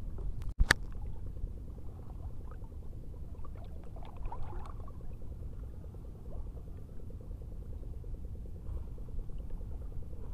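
Wind rumbling on the microphone over water lapping against a small boat's hull at sea, with a single sharp knock about half a second in.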